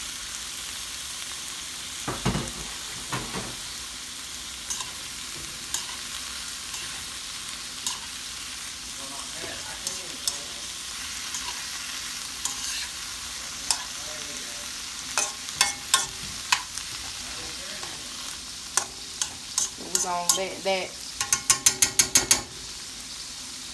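Sliced sausage, onion and bell pepper sizzling in a wok, with a steady frying hiss as metal utensils scrape and click against the pan during stirring. A quick run of about ten taps sounds near the end.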